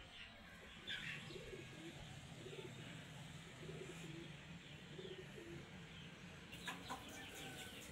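A dove cooing over and over, with a few higher bird chirps about a second in and again near the end, over a faint low steady hum.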